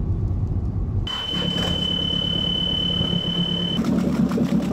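Low steady rumble of a car on the road, then an abrupt cut to a single steady high-pitched electronic beep lasting nearly three seconds over engine noise.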